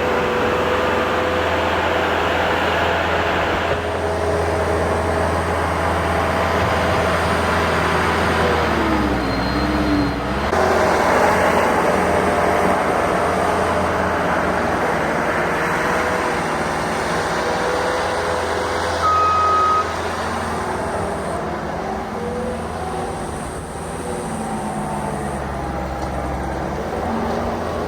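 Diesel engine of heavy earthmoving equipment running under changing load. Its pitch dips and comes back up about ten seconds in. A single short beep sounds about two-thirds of the way through.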